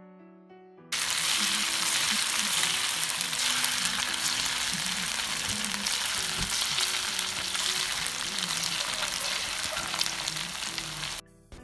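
Coconut oil sizzling steadily as small lumps of rice-and-gram-flour vada batter deep-fry in a shallow pan. The sizzle starts suddenly about a second in and cuts off just before the end.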